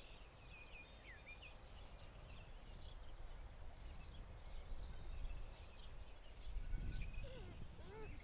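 Faint birds chirping in short calls over a low outdoor rumble of wind on the microphone, which swells briefly about seven seconds in.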